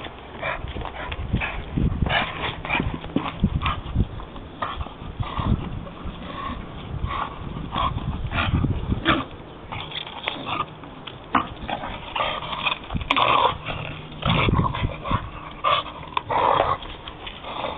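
Staffordshire bull terrier chewing and worrying a wooden log: an irregular run of crunches and knocks from teeth and wood, mixed with the dog's own breathing noises.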